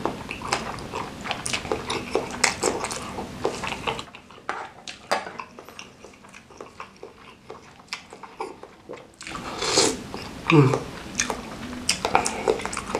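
Close-miked chewing of food, with many wet mouth clicks and smacks in an irregular run. It turns quieter for several seconds in the middle, then grows louder again.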